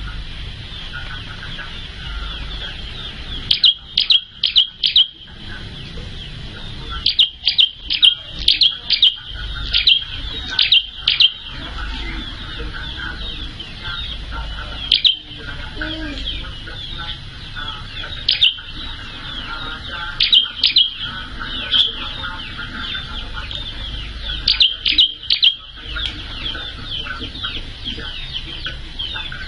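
Prinia (prenjak) songbird calling in loud bursts of rapid, sharp, high-pitched notes, several clusters spread through the stretch, over a constant thinner high chatter.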